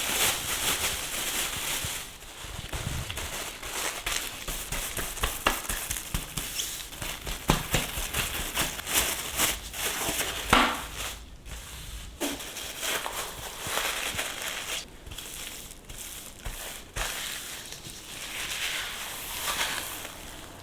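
Kitchen food-prep handling noises: irregular clicks, taps and crackling, with one sharper knock about halfway through.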